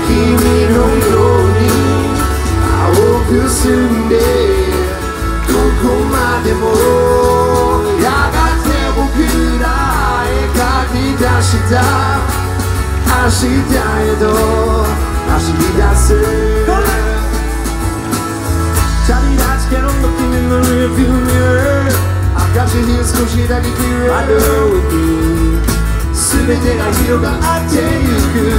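Live band playing a song through a PA: acoustic guitars, a heavy bass line and a lead voice singing the melody, heard from within the crowd.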